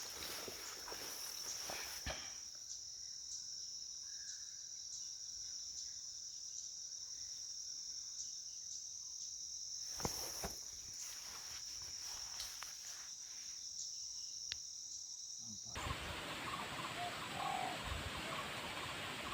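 A steady high-pitched insect drone, with brief rustling and crackling in the undergrowth near the start and again about ten seconds in. A few seconds before the end it gives way abruptly to a louder, rougher hiss.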